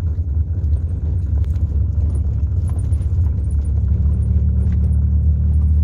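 Steady low rumble of a Toyota car's engine and tyres heard from inside the cabin while driving, growing slightly louder.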